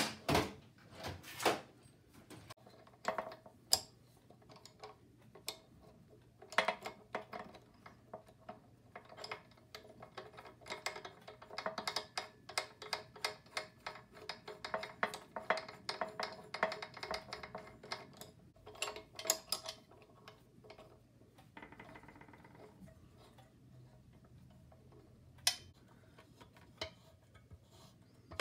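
Hand tools clicking and tapping against the compressor's metal pulley and frame as a puller is fitted, irregular sharp clicks with a dense run of rapid clicking through the middle.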